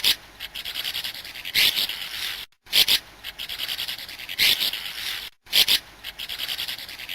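Swallow song: a series of twittering phrases, each a sharp chirp that runs into a fast, dry, buzzy rattle, repeated about every second and a half, with two brief silent breaks.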